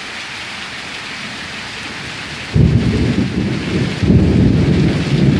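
Heavy rain falling steadily. About two and a half seconds in, a loud, deep rumble of thunder breaks in and rolls on, swelling again a second and a half later.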